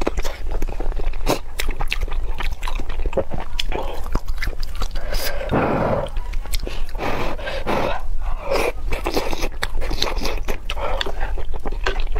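Close-miked eating sounds: wet chewing, lip smacks and slurping of cellophane-noodle soup, with longer slurps about six seconds in and again a second or two later.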